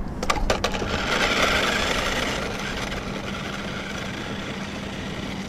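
Remote-control car with a small motor: a few clicks as it is set down, then the whirr of its motor and tyres on rough asphalt as it drives off, fading as it goes.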